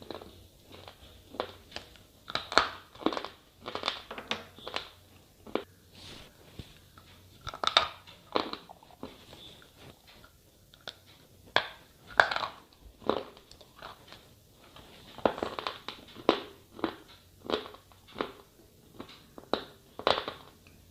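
Slate pencils being bitten and chewed close up: crisp, irregular crunches, about one or two a second.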